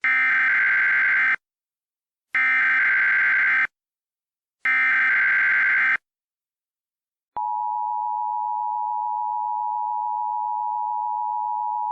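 Emergency Alert System SAME header: three identical harsh digital data bursts, each just over a second long and about a second apart. About seven seconds in, the steady two-tone EAS attention signal (853 and 960 Hz) starts and holds. Together they mark the start of an emergency alert broadcast.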